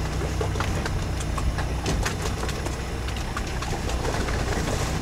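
Sherp all-terrain vehicle's diesel engine running steadily at a low pitch, heard from on board as the vehicle moves through water, with scattered sharp clicks and knocks over the engine hum.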